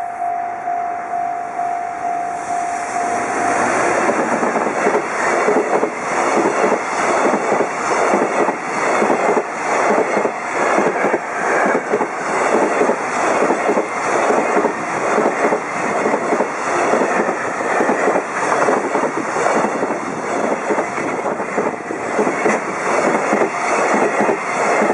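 Level-crossing alarm tone sounding steadily, drowned about three seconds in by a freight train's container wagons passing close at speed, their wheels clattering rhythmically over the rail joints.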